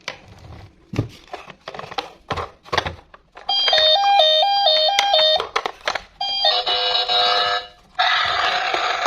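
A few scattered clicks and knocks, then from about three and a half seconds in a simple electronic beeping tune: a quick warble between two notes, with other notes stepping above it, which breaks off briefly and comes back as held electronic notes.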